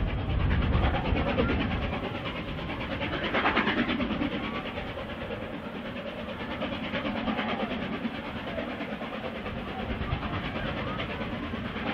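Steam locomotive 60163 Tornado, an A1 Pacific, working a train up a 1 in 60 climb, heard from across the cove. Children shout and call on the beach over it.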